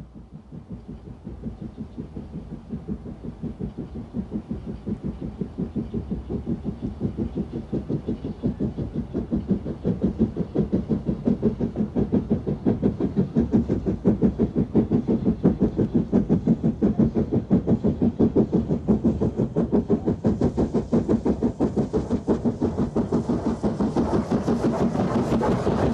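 Great Central 'Director' class two-cylinder 4-4-0 steam locomotive working a passenger train, its exhaust beats coming fast and even and growing louder as it approaches. Near the end, as it passes close by, wheel and rail noise rises over the beat.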